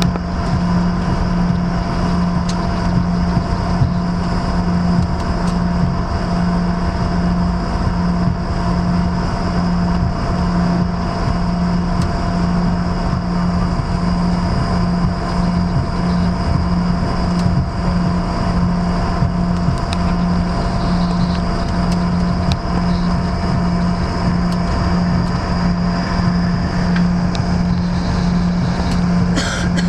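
Airliner cabin noise on the ground: the aircraft's engines and air systems make a steady low hum that throbs slightly and regularly, with a few steady higher whining tones over a rushing haze. A brief rattle near the end.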